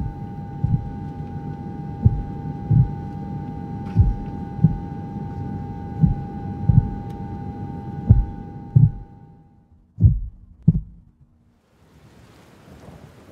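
Heartbeat sound effect, slow double thumps about every two seconds, over a sustained musical drone that stops about ten seconds in. After the last beat there is a short silence, then rain starts near the end.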